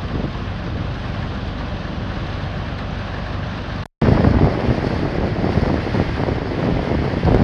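Kromhout 3LSD marine diesel engine running steadily as the workboat moves under way, with wind buffeting the microphone. After a brief dropout about four seconds in, the rush of the bow wave and the wind are louder over the engine.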